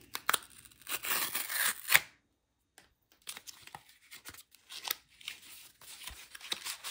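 Cardboard packaging of a new Kindle Paperwhite being torn open and handled: tearing and scraping rustles mixed with sharp clicks, broken by a moment of complete silence about two seconds in.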